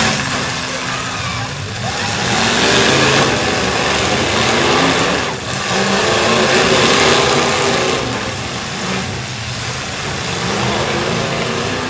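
Several demolition derby trucks' engines revving hard and running under load at once, a loud, continuous engine din that swells and eases as they drive at each other.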